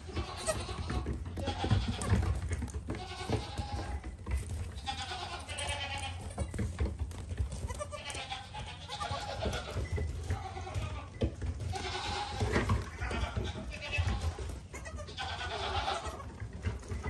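Young goat kids bleating again and again, many high wavering calls overlapping one another, with small hooves clattering and knocking on wooden steps and a concrete floor.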